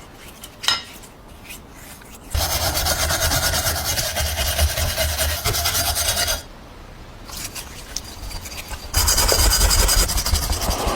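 A power tool abrading the parts of an old grain mill in two long runs, starting about two seconds in and again about nine seconds in, each with a low motor hum under a harsh rasping noise. Quieter handling with light clicks comes before and between the runs.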